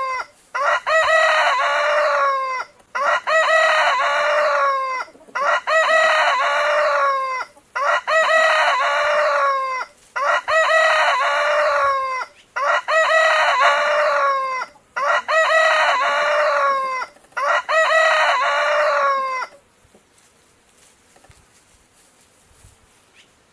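A rooster crowing over and over: a full cock-a-doodle-doo about every two and a half seconds, eight times. The crowing stops a few seconds before the end.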